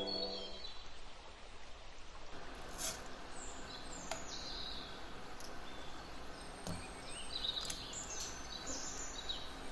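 Birds chirping repeatedly in the background, with a few sharp light clicks and a faint steady hiss that starts a couple of seconds in. Background music cuts off in the first second.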